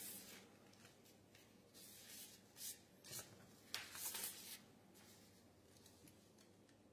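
Near silence broken by a few faint, brief rustling and handling noises, the longest about four seconds in.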